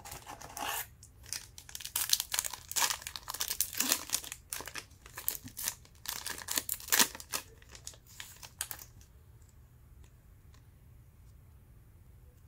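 A Panini Hoops basketball card pack wrapper being torn open and crinkled in the hands, in irregular rustling bursts that stop about nine seconds in.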